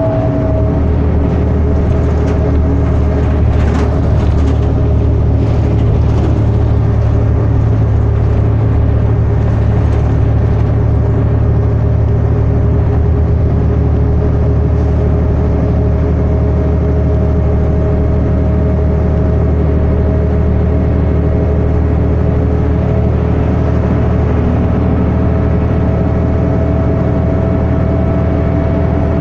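Onboard sound of a 2011 New Flyer D60LFR articulated bus, its Cummins ISL9 diesel and Allison B500R automatic transmission running steadily at freeway speed: a constant low engine drone with a steady whine above it.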